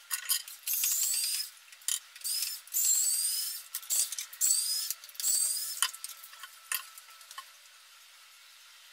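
A cloth wiping glazed kitchen wall tiles in quick rubbing strokes, about five of them, each with a high rising squeak. A few light clicks and handling knocks follow near the end.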